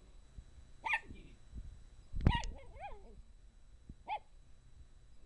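Small dog giving three short, high-pitched barks, the loudest about two seconds in trailing into whiny yelps: agitated barking at a hamster hidden in its blanket.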